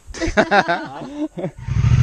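A person's voice calls out for about a second and a half. Then a motorcycle engine starts suddenly and runs with an even low pulse, louder than the voice.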